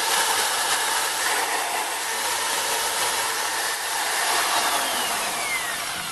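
500-watt AEG electric drill spinning a thin grinding disc on an arbor mandrel with no load, its motor running with a steady whine. About four and a half seconds in, the pitch starts to fall and the sound tapers off as the drill winds down.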